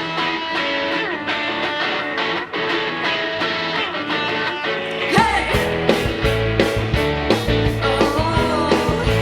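Live rock band playing a song's intro: an electric guitar riff with little bass underneath, then about five seconds in the drums and bass guitar come in and the full band plays.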